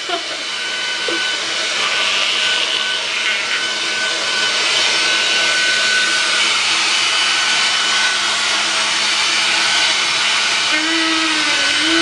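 Handheld ionic hair dryer blowing steadily: a constant rush of air with a steady motor whine.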